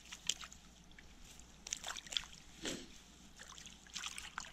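Small, irregular water splashes and drips from a wooden landing net lying in shallow stream water while a brook trout moves in it and is handled; a few short splashes spaced through.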